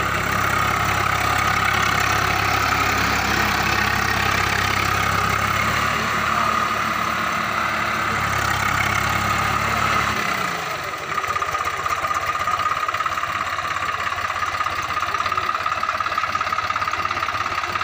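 Swaraj 735 tractor's three-cylinder diesel engine running steadily as it works through deep mud and water. About ten seconds in the deep engine note drops away, leaving a rapid diesel clatter.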